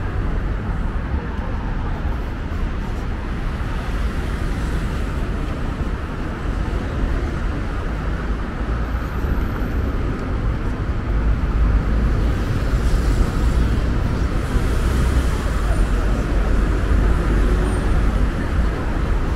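Steady road traffic on a busy city avenue, cars driving past with a constant low rumble, growing louder for several seconds past the middle.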